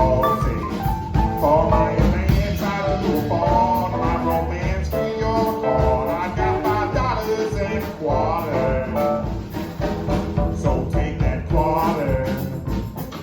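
Live blues-rock band playing an instrumental break: a lead line with sliding, bending notes over bass and drums.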